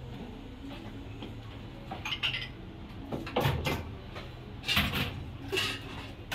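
Cutlery clinking against dishes: several short clinks and scrapes, the first about two seconds in, over a low steady room hum.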